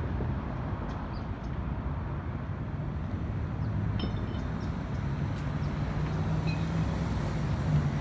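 Steady low rumble of road traffic, with an engine hum that grows a little louder in the second half.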